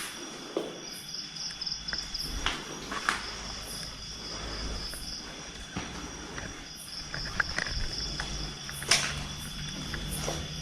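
Night insect chorus: crickets trilling in steady high tones, with scattered short clicks and knocks, the sharpest about nine seconds in.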